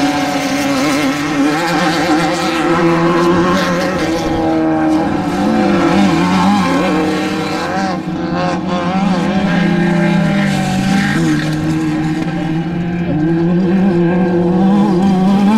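Off-road desert race vehicle engine running hard at high revs, a steady drone whose pitch wavers up and down briefly around the middle.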